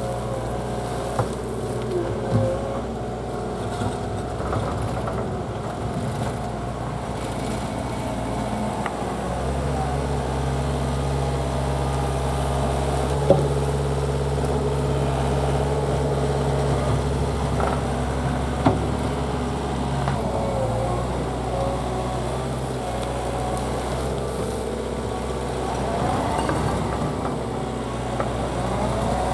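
Takeuchi TL240 compact track loader's diesel engine working, growing louder under load about ten seconds in and easing back about twenty seconds in, with a few sharp metallic knocks.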